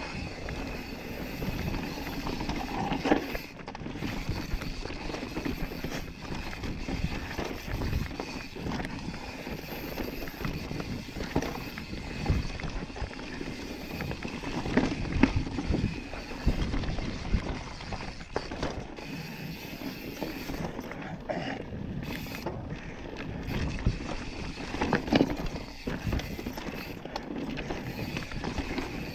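Yeti SB5 full-suspension mountain bike rolling fast down a dirt and rock singletrack: tyres running over dirt and stones and the bike rattling, with sharper knocks as it hits bumps, loudest a few times.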